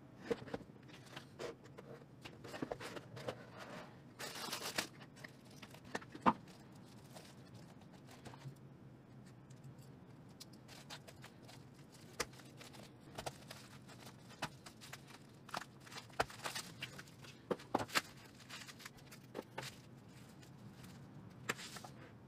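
Hands unpacking a cardboard box of printed circuit boards: scattered clicks and rustles of cardboard and a bubble-wrap bag, with a longer tearing sound about four seconds in. A utility knife slits the bubble wrap near the middle.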